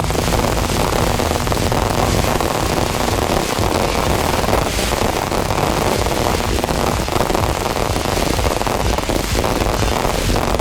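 Fireworks display: a dense, unbroken barrage of bangs and crackling shells going off in quick succession.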